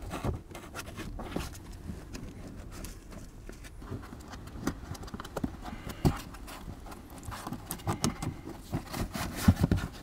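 Irregular plastic clicks, knocks and rubbing as a hand works at the cabin filter housing under a car's dashboard, fitting the new cabin filter. The knocks come thicker and louder near the end.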